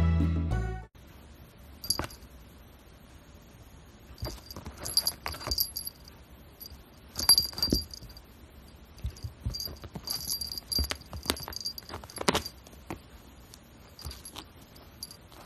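A small metal jingle bell jingling in short, irregular bursts with soft taps and rustles between them, as a kitten moves or plays.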